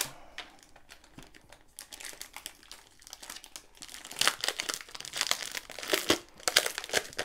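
Crinkly clear plastic wrapping on a rolled canvas being peeled and pulled open by hand: crackling and rustling, light at first and louder and busier from about four seconds in.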